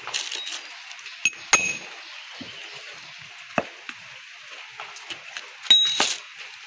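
Small hammer tapping cardboard gasket material against the edge of a metal part to cut the gasket to shape. About six sharp, uneven metallic clinks with short ringing, the loudest two close together near the end.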